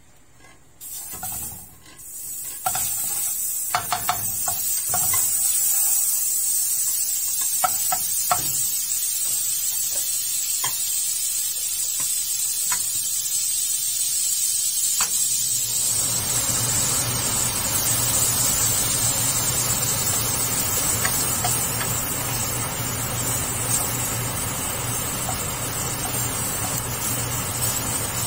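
Butter sizzling in a nonstick wok, with a few light clicks in the first half. From about halfway the sizzle grows louder and fuller, and near the end garlic is frying in it, stirred with a wooden spatula.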